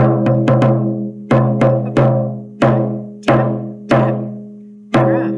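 Large Remo frame drum beaten with a soft ball-headed mallet: ten loud strikes, mostly in quick groups of three, each leaving a low ringing tone that dies away.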